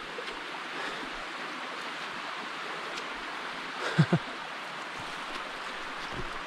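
Steady rush of a mountain brook running high after days of heavy rain, its water pouring down the rock. About four seconds in, a short, loud grunt-like vocal sound.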